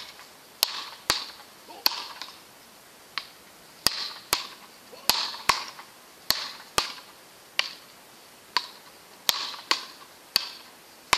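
A ball struck back and forth on paddle rackets in a fast rally: a run of sharp cracks, about one every half second to second.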